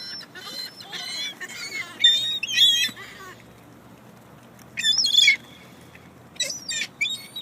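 Birds squawking in short, harsh bursts of calls, loudest around two to three seconds in and again about five seconds in, with more calls near the end.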